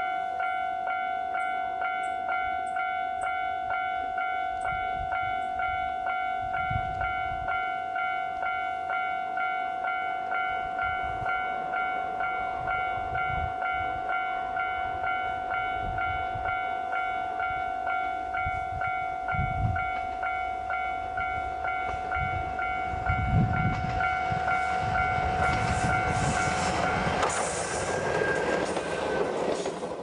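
A level-crossing warning bell ringing in a steady, even pulse while a Moka Railway diesel railcar approaches on the single track. The railcar's engine and wheels grow louder and pass close, loudest over the last few seconds.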